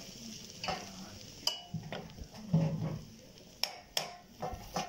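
Pieces of camel hump fat cooking in a pot as they begin to melt and render their fat: a faint sizzle, with a few sharp clicks of a utensil against the pot.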